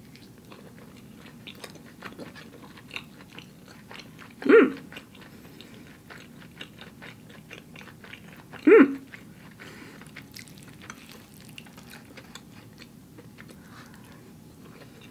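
Close-miked chewing of a soft, saucy spoonful of tofu tikka masala, with small wet mouth clicks and smacks throughout. A short hummed 'mm' comes about four and a half seconds in, and again about nine seconds in.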